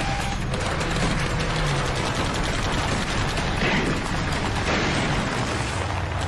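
Sustained automatic gunfire, shots packed closely together without a break.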